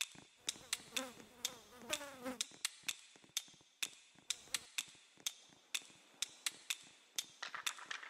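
Bacon cooking, with sharp irregular pops and crackles about two or three times a second over a faint sizzle. A brief gliding, voice-like sound comes between about one and two and a half seconds in.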